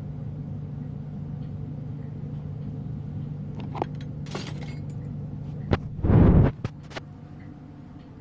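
Steady low hum from a lampworking torch setup, with a few light clicks and clinks from about three and a half seconds in. A loud thump and rustle of the camera being handled follows at about six seconds, after which the hum is quieter.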